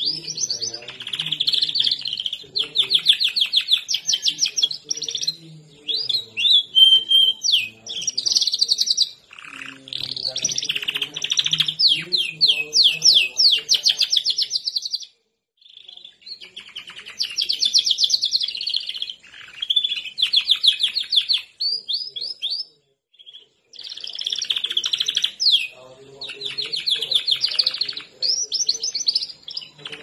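Canary singing a long, freely flowing song of rapid trills and rolling phrases, with two short breaks. It is the full, open song that canary keepers call "blegas".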